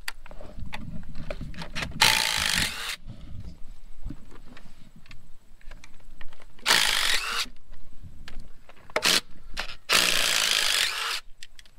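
Socket ratchet working a rusted half-inch bolt out of a Farmall H engine, with three rasping bursts of about a second each and small clicks between them.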